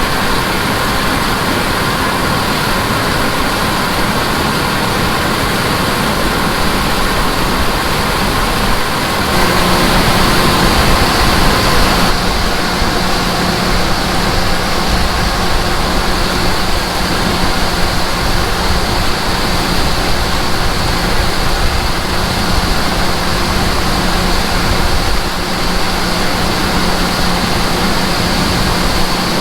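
Heavy harvest machinery running: a steady engine drone under a dense rushing noise. About ten seconds in it briefly gets louder and a low hum comes in, which then holds steady.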